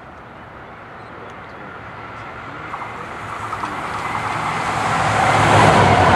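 A train approaching on the line, its running noise and rumble growing steadily louder as it nears.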